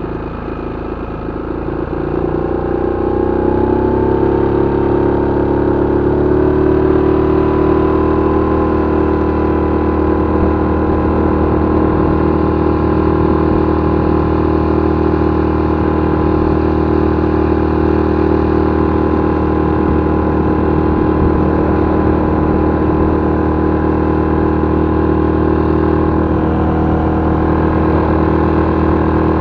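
Parsun F6 four-stroke outboard motor speeding up over the first few seconds as the throttle is opened, then running steadily at high speed with the boat under way.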